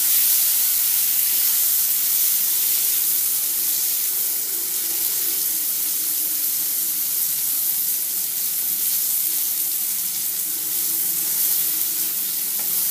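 Tomatoes and grapes in an onion-spice masala sizzling steadily in hot oil in a pan.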